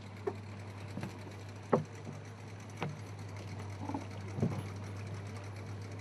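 Low steady hum of the work boat's motor idling, with several sharp knocks against the boat as swans are handled aboard.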